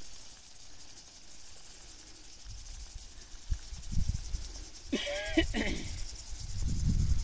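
Outdoor field ambience: wind rumbling on the microphone over a faint high hiss, with a brief warbling call about five seconds in.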